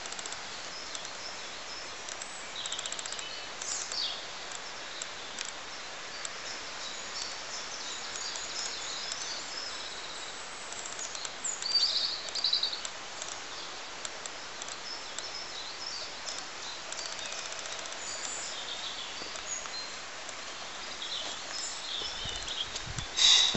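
Woodland ambience: scattered bird chirps and calls over a steady background hiss, with a louder run of calls about halfway through and a brief louder noise near the end.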